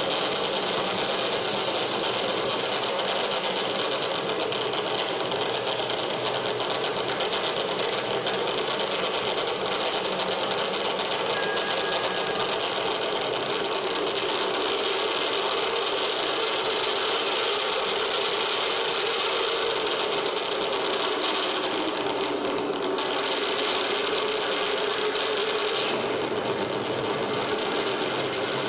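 Live harsh noise music: a dense, unbroken wall of rattling, rasping amplified noise at a steady loudness, hissing strongest in the upper range over a lower drone. The high hiss thins out briefly a little over twenty seconds in, then returns.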